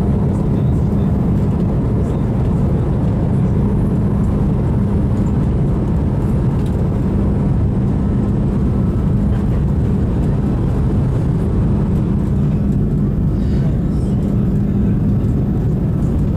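Jet airliner cabin noise during the climb after takeoff: a steady engine roar and airflow heard from inside the cabin, with a constant low hum.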